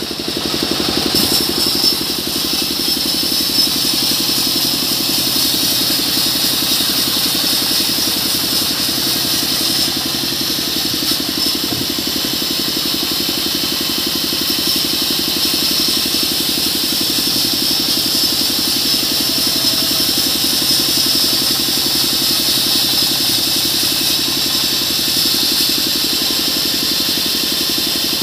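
Band sawmill running steadily with its blade spinning free, not yet cutting: an even machine drone with a high whine over it.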